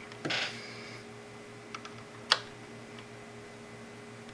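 Small clicks and one sharp tap about two seconds in, from the soldering iron and solder wire working the header pins on the board, over a steady electrical hum.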